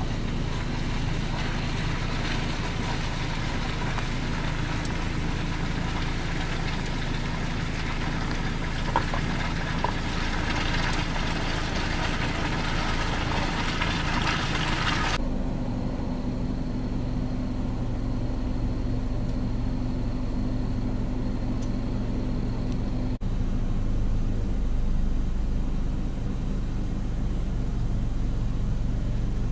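An engine idling steadily, a low hum with a hiss above it. About halfway through the hiss drops out abruptly and the hum changes pitch slightly, then carries on steadily.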